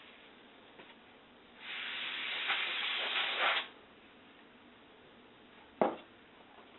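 Can of compressed air spraying, one hissing burst of about two seconds. A single sharp click near the end.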